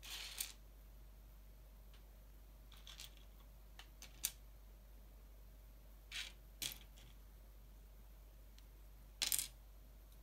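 Small plastic LEGO pieces clicking and clattering on a hard tabletop as they are handled, picked up and set down, with a few sparse sharp clicks and a louder little clatter about nine seconds in.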